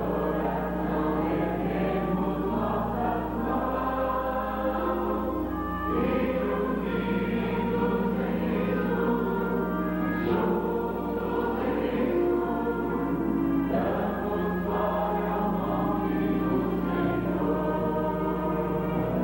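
A congregation of mixed voices singing a hymn together, holding long notes, over a steady low hum.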